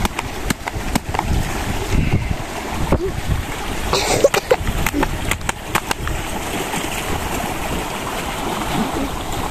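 Loud outdoor background noise, a steady rushing rumble, dotted with scattered sharp clicks and knocks from handling.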